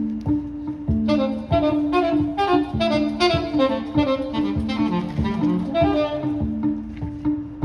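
Live jazz trio: a saxophone plays a fast, busy run of notes from about a second in, over acoustic guitar and plucked upright double bass.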